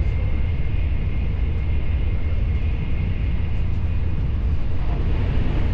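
Steady low rumble of a moving vehicle, with a faint steady whine above it.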